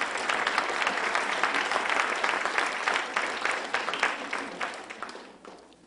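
Large audience applauding, the clapping thinning out and dying away near the end.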